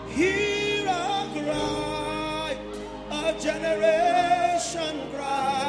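Worship singing: a voice holding long, wavering notes over steady instrumental backing.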